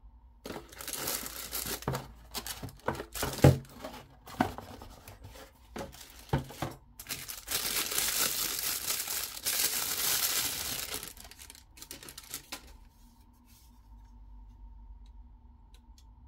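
Packaging being handled and torn open: a series of knocks and crinkles, then about four seconds of continuous tearing and crinkling, then a few more handling knocks.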